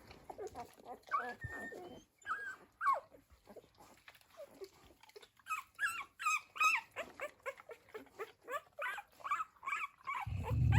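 Newborn Dalmatian puppies squeaking, a string of short high whimpers that grows busier about halfway through. Near the end a low growl from an adult dog sets in.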